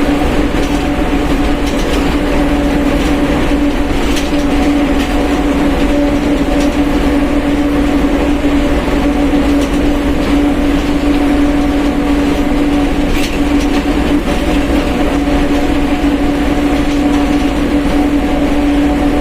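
Differential of a Mercedes-Benz OF1721 BlueTec 5 bus whining with one steady tone over the rumble of the moving bus, its pitch held constant at a steady speed.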